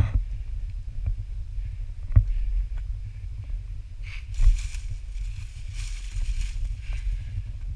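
Steady low rumble of wind and handling noise on a GoPro held on a selfie pole, with a few sharp knocks. About halfway through come a couple of seconds of scuffing footsteps on gravel and rock.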